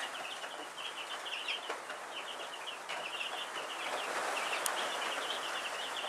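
Broiler (meat-bird) chicks peeping constantly in short high chirps, over a steady hiss of rain.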